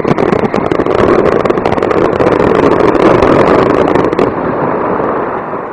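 Aerial fireworks crackling: a dense shower of rapid small pops from crackling stars over a loud, rushing noise, the pops dying out about four seconds in as the sound fades.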